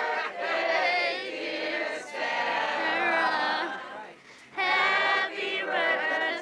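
A group of people singing together in chorus, with a brief break a little over four seconds in before the voices pick up again.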